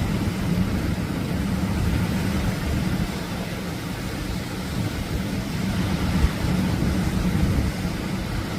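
Atlantic surf breaking on a beach: a steady, deep rumble of waves that swells and eases slowly.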